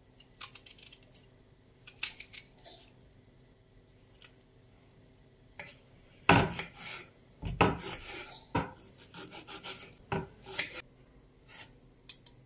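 Food-preparation handling on a wooden surface: irregular scraping and rubbing strokes with a few sharper knocks. They are sparse at first and come louder and closer together about halfway through.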